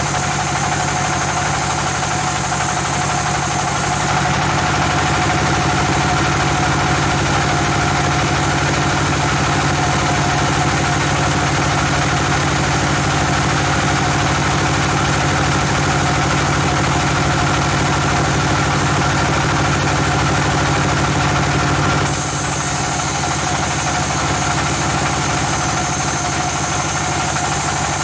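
Sawmill machinery running steadily with a constant mechanical hum. Its sound changes about four seconds in, loses its high hiss and grows slightly louder, then returns to the first sound about six seconds before the end.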